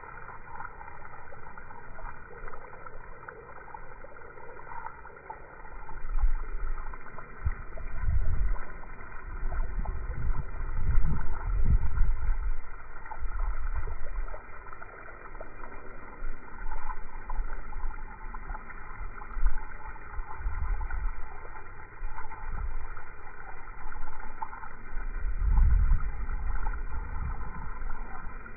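Rushing spray of water from a garden hose splashing onto turf, slowed down with the slow-motion footage so it sounds deep and muffled. Louder, deeper swells come about a third of the way in and again near the end.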